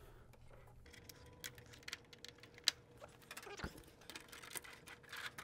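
Faint, scattered clicks and taps of plastic parts as the louver and hinged front panel of a mini split indoor head are fitted back into place, with one sharper click about two and a half seconds in.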